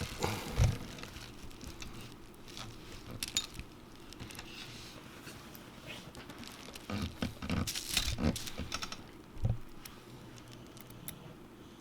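Scattered light clicks and taps of small tools and iPhone 7 Plus parts being handled while the home button is screwed back in, with a louder knock about half a second in and another a little after nine seconds.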